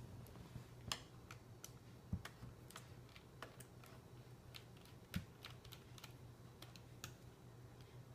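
Faint, irregular small clicks and ticks of a small Phillips screwdriver turning out the screws of a laptop screen's plastic bezel.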